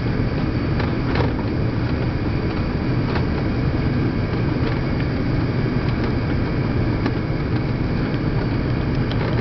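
Steady cabin noise inside an Emirates Airbus A330 airliner on its landing approach: an even, low drone of the engines and airflow, heard from a window seat.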